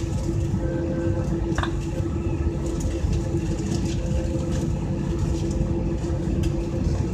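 Steady airliner cabin noise: a low rumble of air and machinery under a constant hum, with a single sharp click about a second and a half in.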